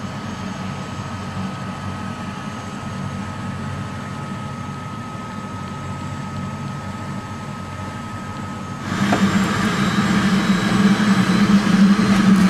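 Helicopter turbine engine and rotor running, heard from inside the cockpit: a steady hum with a thin high whine, growing louder about nine seconds in.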